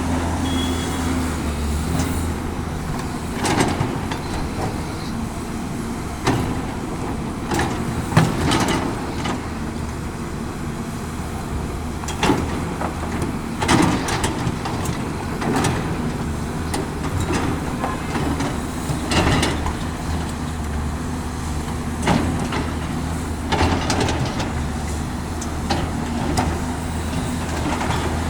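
Caterpillar 329D L hydraulic excavator's diesel engine running steadily, with sharp knocks and clanks every few seconds while it works loading earth.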